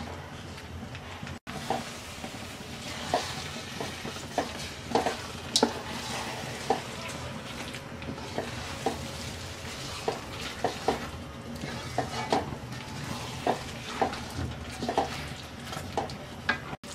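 A wooden spatula stirring and scraping thick, sticky jujube pickle around a metal pan, with irregular soft knocks against the pan, over a steady sizzle of the pickle cooking down on low heat.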